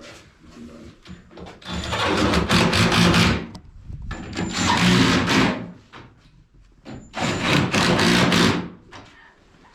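Power drill driving screws in three runs of one to two seconds each, with the motor's hum under a loud, rough grind.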